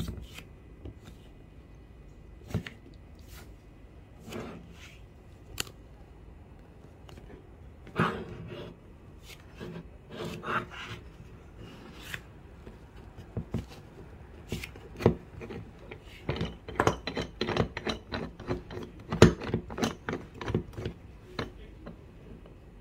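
Hands working a small aluminium-alloy table vise: scattered clicks and knocks of its metal and plastic parts, becoming a quick run of knocks and rubbing in the last third.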